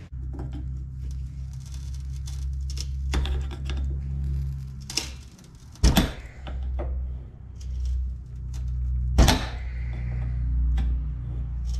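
Screwdriver prying and scraping at a steel bearing race seated in a cast hub, giving scattered sharp metallic clicks, the loudest about six and nine seconds in, over a steady low hum.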